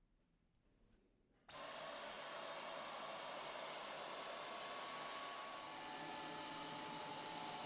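Dyson Cyclone V10 cordless stick vacuum switching on about a second and a half in and running steadily with a high whine, the whine stepping slightly lower in pitch about four seconds later.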